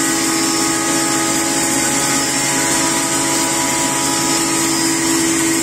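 Double-stage blower-type pulveriser running steadily: a constant machine hum with a strong unwavering tone and a high hiss, holding the same pitch throughout.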